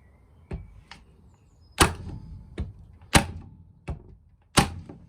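Titan TTB517STP corded electric nail gun firing 25mm nails on its low power setting into softwood. There are three loud sharp shots about a second and a half apart, with lighter clicks between them.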